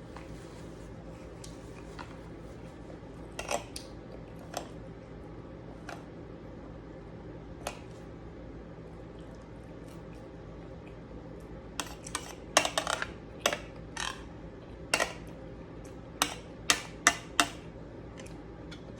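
Eating utensils clinking and tapping against a plate during a meal: a few scattered clicks, then a quicker run of louder clinks in the second half, over a steady low hum.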